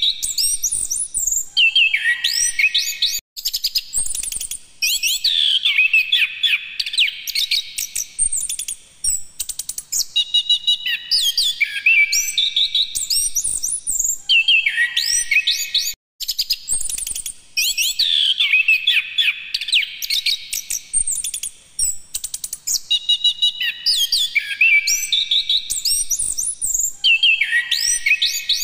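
Chestnut-capped thrush (anis kembang) singing a loud, fast, varied song of high whistled and chattering notes, in long unbroken phrases with short pauses between them.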